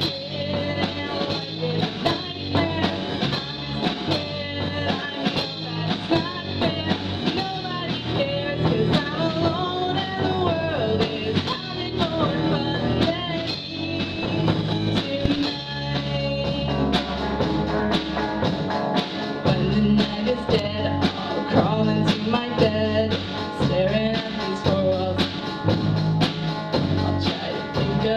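Live rock band playing: two electric guitars, electric bass and drum kit, with a girl singing lead into a microphone.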